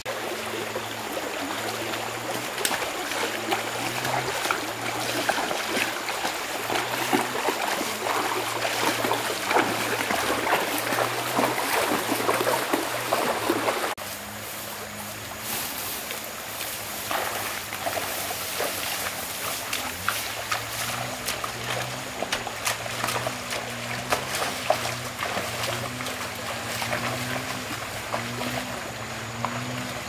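Shallow rocky stream running, with splashing as a person and a water buffalo wade through it. It is louder in the first half and drops about halfway through. Soft background music with slow, low notes plays beneath.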